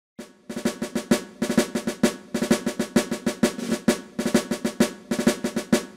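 Drum-led music: rapid snare-drum strokes and rolls in quick groups over a low bass drum.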